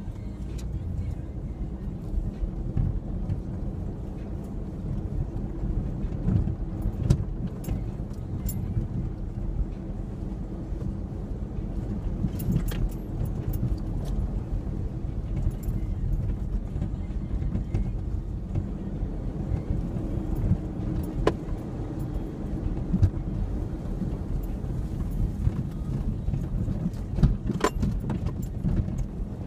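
A 2003 Ford Ranger 4x4 running steadily while driving over rough ground, with a low drone throughout and scattered sharp clicks and jangling rattles.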